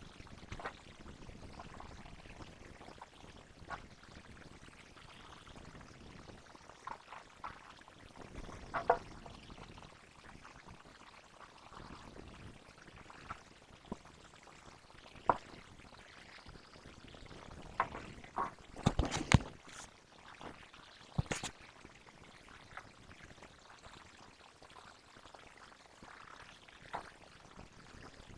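Slime ingredients being poured and mixed in a container, with scattered taps and clicks and a cluster of louder clicks about two-thirds of the way through.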